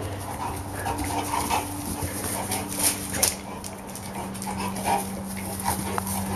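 A dog making short, high whines now and then while playing, over scattered knocks and rustles.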